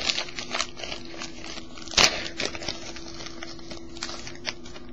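Foil wrapper of a trading-card pack crinkling and cards being handled: a run of crackly clicks, with one sharp loud snap about two seconds in, then fewer clicks.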